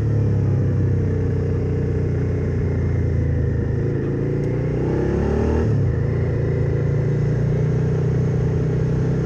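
A 2017 Suzuki SV650's 645 cc V-twin engine under way, heard through its Scorpion carbon-fibre slip-on exhaust as a low growl. Its pitch rises about halfway through, then drops sharply a couple of seconds later.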